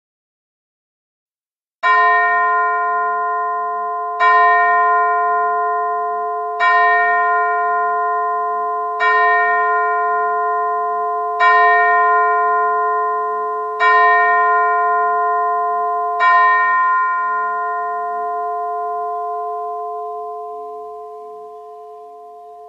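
A single bell struck seven times at an even pace, about one stroke every two and a half seconds, all on the same note; the last stroke is left to ring and fade.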